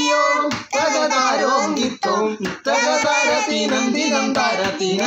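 A boy singing a Malayalam folk song, sustained sung phrases with a few short breaks for breath between them.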